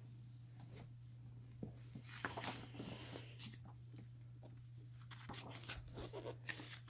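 Pages of a large art book being turned by hand: faint paper rustles and slides in two clusters, about two seconds in and again near the end.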